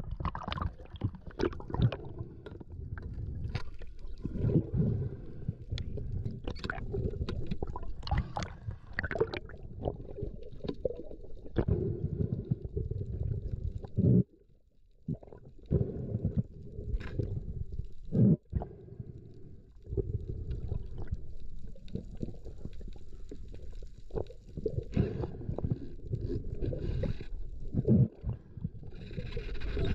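Water sloshing and gurgling with scattered knocks and clicks, and a brief drop to near silence about halfway through.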